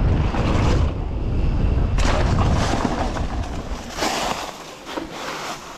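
Wind buffeting an outdoor microphone as a low rumble for about two seconds, then a sharp start to noisy hissing, with a few more short hissy bursts near the end.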